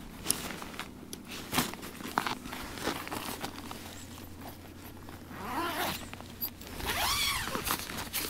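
A zipper being pulled, in two long rasping strokes about five and a half and seven seconds in, after a few scattered clicks and knocks.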